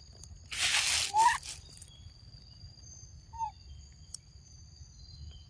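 A monkey biting into and crunching green fruit, one loud crunch about a second in, with a few short falling chirps and a steady high-pitched drone behind.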